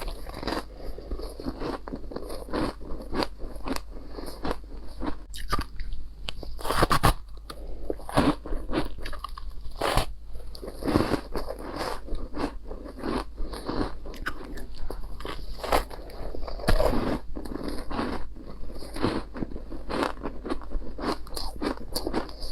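Close-up biting and crunching of powdery chunks of ice: a dense, continuous run of crunches with a few louder bites among them.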